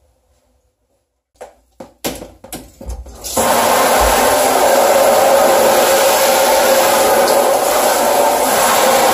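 A few knocks and clatters, then about three seconds in a handheld shower head comes on at full flow: a loud, steady hiss of water spraying onto a chair in the shower.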